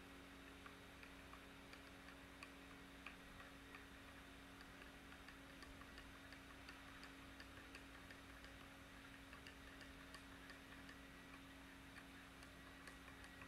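Spoon stirring a drink in a ceramic mug: faint light clinks against the mug, about one or two a second, over a faint steady hum.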